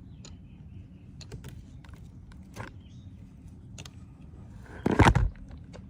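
Hands and tools working on car-audio wiring: scattered light clicks and taps over a low steady rumble, then a loud bump about five seconds in.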